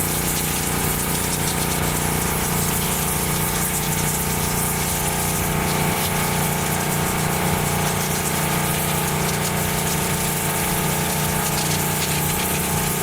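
Pressure washer running steadily, its water jet spraying and hissing as it blasts grease off old car suspension parts.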